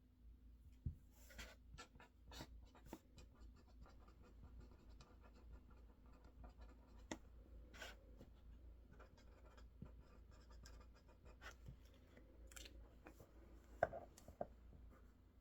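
Faint desk sounds of someone studying: scattered light clicks and scratchy strokes, with a sharper tap about a second in and the loudest one near the end.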